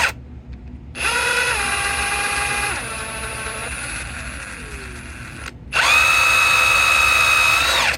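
Electric power drill running. It starts about a second in, drops in speed twice and winds down, then spins back up quickly and runs steadily at high speed.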